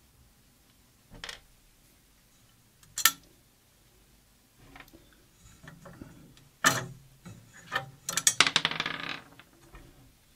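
Small metal parts clicking and rattling as they are handled: a few separate clicks, then a quick run of rattling about eight seconds in.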